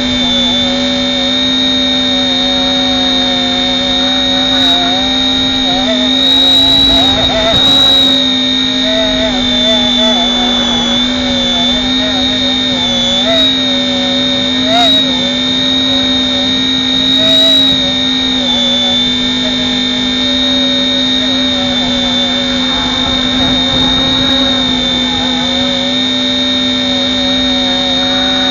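RC helicopter in flight: a steady motor and rotor whine with a strong high tone, its pitch wavering slightly as the copter corrects against wind gusts. A few brief gusty flares of noise occur, around a quarter of the way in and again past halfway.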